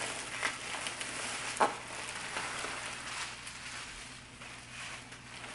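Bubble wrap crinkling and crackling as a wrapped item is pulled out of a cardboard box, with a sharp click about a second and a half in.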